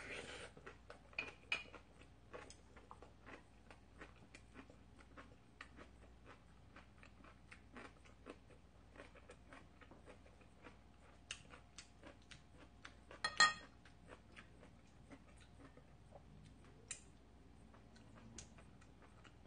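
A person eating octopus dishes: faint chewing and many small clicks of a spoon or chopsticks against bowls. One louder clink with a short ring comes about thirteen seconds in.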